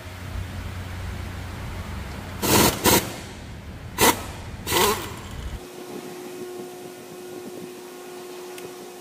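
Dongyang 5240 tractor engine running at a steady low idle, with four short, loud, noisy bursts between about two and a half and five seconds in. The engine then stops suddenly about five and a half seconds in, leaving a faint steady hum.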